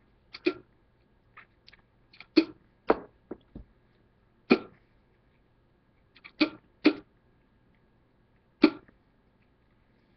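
Short wet mouth sounds, spits and lip smacks, as a pinch of moist snuff dip is cleared out of the mouth. About a dozen brief pops come at irregular intervals.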